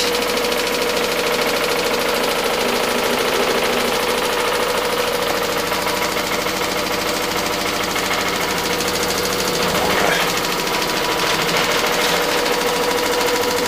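LG front-loading washing machine on its spin cycle, running with a steady hum and rattle. It is shaking hard because there are no foam pads wedged alongside it.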